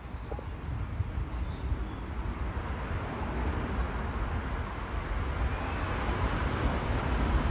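Low rumble of an approaching vehicle, with a hiss that grows steadily louder.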